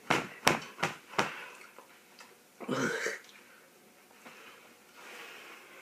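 A person coughing with a throat irritated by dry ground cinnamon. Four short, sharp coughs come in quick succession in the first second, then one longer, fuller cough about three seconds in.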